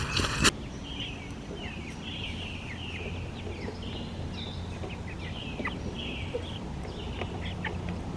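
Birds chirping: many short, high calls repeating over a faint low steady hum.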